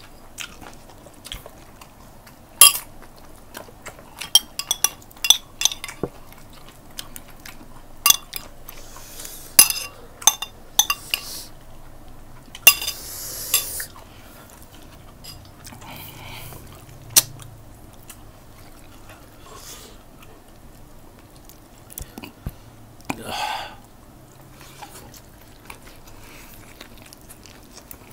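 Close-miked eating sounds of chicken adobo being chewed and sucked off the bone, with many sharp clicks and clinks through the first half and a few longer noisy stretches later.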